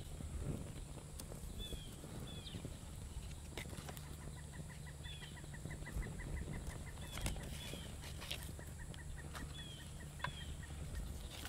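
Faint outdoor ambience of birds calling in short falling chirps, with a fast, even trill of about five pulses a second through the middle, and scattered sharp crackles from a small wood campfire.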